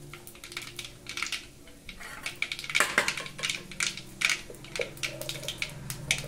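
Cumin seeds crackling and spluttering in hot oil in a kadhai: irregular sharp pops, densest about three seconds in, over a faint low steady hum.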